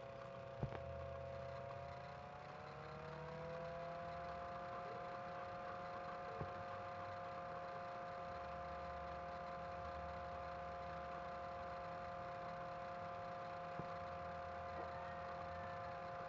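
A steady mechanical hum of several held tones, whose pitch rises slightly about three seconds in and then stays level, with a few faint single clicks.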